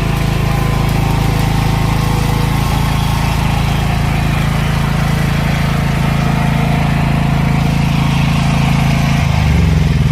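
SPS Premium King 13.5 kVA portable generator's engine running steadily, then near the end its pitch drops as it begins to wind down.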